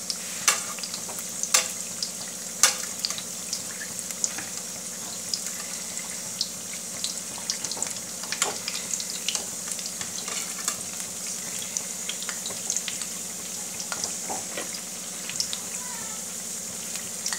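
Gulgule (wheat-flour and jaggery fritters) deep-frying in hot oil in a kadhai: a steady sizzle with scattered crackles and pops, a few louder pops in the first three seconds.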